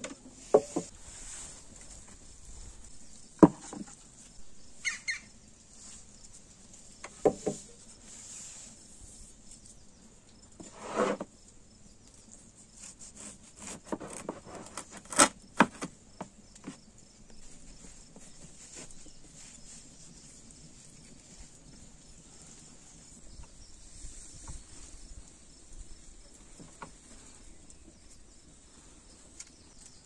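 Scattered hard knocks of earthenware pots being set down on a wooden table and of a heavy meat cleaver on a wooden chopping board, several loud ones in the first half and only light clicks later, over a steady high hiss.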